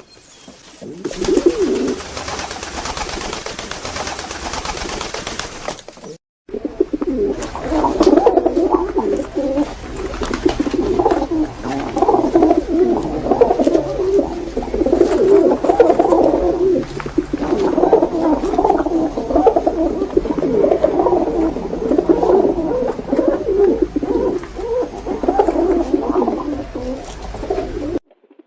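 Several pigeons cooing (курлыканье), with overlapping, throbbing coos running on almost without pause. For the first few seconds a steady hiss dominates and the cooing is faint; the hiss breaks off briefly at about six seconds, and the cooing is then loud and continuous.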